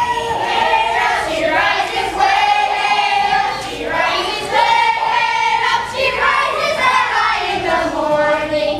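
A group of children singing a song together, with long held notes.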